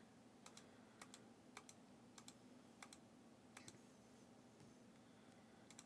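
Faint clicking at a computer: short sharp clicks, most in quick pairs, coming every half second or so, over a faint steady hum.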